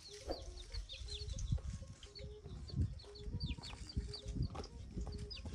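Young chicks peeping: a steady run of short, high, falling cheeps, two or three a second, over low irregular thumps.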